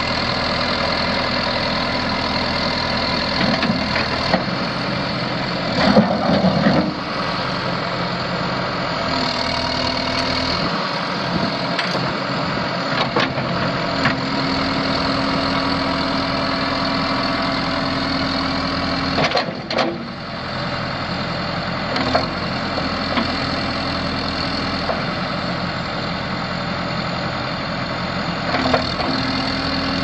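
2008 John Deere 310SJ backhoe's four-cylinder diesel engine idling steadily, with a short louder burst about six seconds in and another near twenty seconds.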